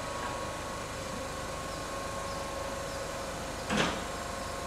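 Railway station platform ambience: a steady hum with faint held tones, and one short rushing noise about four seconds in.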